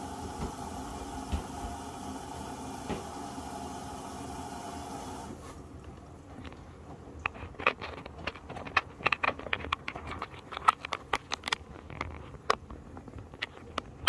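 Hotpoint WMD960 washing machine on a cottons 50 °C wash: water hissing in through the inlet valve, cutting off suddenly about five seconds in. Then the drum tumbles the wet laundry with irregular splashes and sharp clicks.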